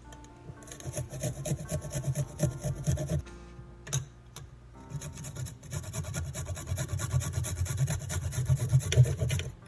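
Kitchen knife rapidly chopping fresh ginger on a wooden cutting board, in two quick runs of strokes with a short pause between them.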